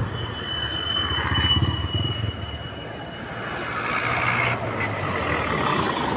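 Road traffic: vehicles passing, with the low running of heavy engines swelling twice as they go by. A faint steady high whine sounds through the first half.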